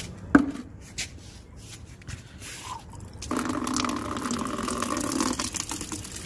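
A sharp knock just after the start. About halfway through, a jet of water from an open pipe end starts pouring into a plastic bucket with a steady rush, easing a little near the end.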